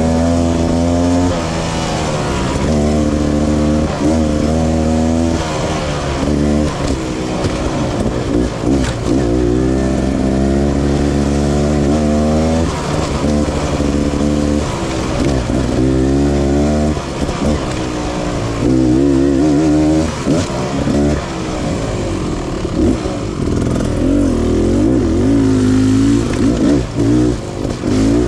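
Motorcycle engine running under way, its revs rising and falling again and again throughout.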